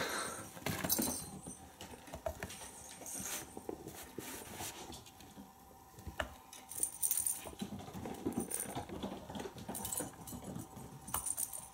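Kittens scrambling about a carpeted cat tree: claws scratching and scrabbling on sisal and fabric, with light knocks, and a light jingle now and then, loudest twice in the second half.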